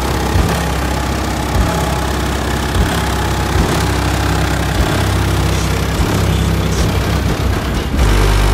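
Bass-heavy music played loud through four Skar Audio 12-inch subwoofers in a car, heard from outside the car, with a regular beat about once a second. The bass gets deeper and heavier near the end.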